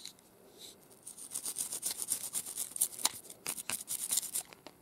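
A small brush scrubbing a metal necklace clasp in soapy water: rapid, scratchy back-and-forth strokes that start about a second in.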